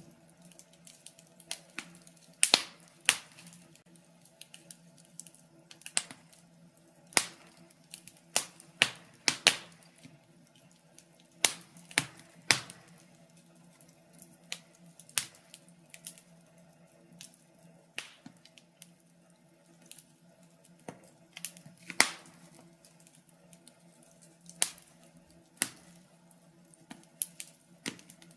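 Wood fire crackling in a fireplace: irregular sharp pops and snaps, a few louder than the rest, over a faint steady low hum.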